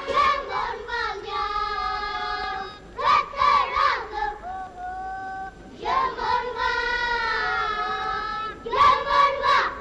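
A child's voice singing in long phrases, holding some notes for a second or more with short breaks between phrases.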